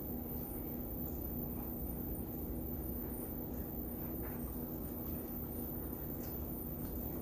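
A person chewing food, faint eating noises with a few soft short clicks, over a steady low background hum.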